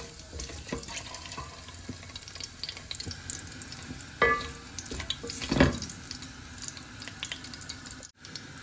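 Whole spices (bay leaves, cinnamon, cloves and cardamom) frying in hot oil in a cooking pot, a steady sizzle with small crackles while being stirred. There is a ringing clank about four seconds in and a louder knock a second later.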